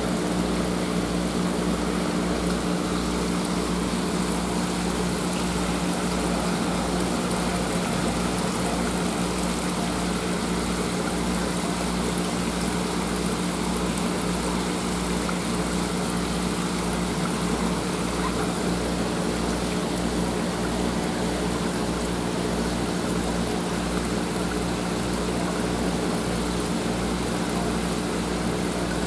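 Steady hum of an aerated tank's water pump with an even low pulsing, over the continuous trickle and hiss of running water.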